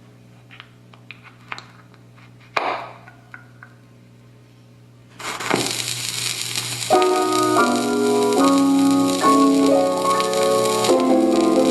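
Califone 1430A portable record player: a steady low amplifier hum with a few small clicks and a thunk, then about five seconds in a loud hiss starts as the needle rides the record. About two seconds later a piano tune starts playing through its speaker.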